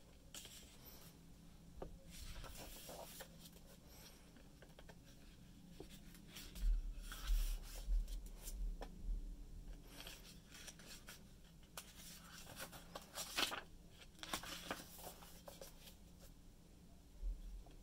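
Pages of a large art book being turned by hand: several bursts of paper rustling and sliding a few seconds apart, with a soft low thump in the middle.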